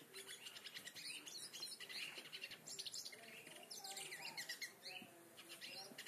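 Hooded siskin (cabecita negra) singing: a fast, continuous twittering song of rapid high chirps and trills.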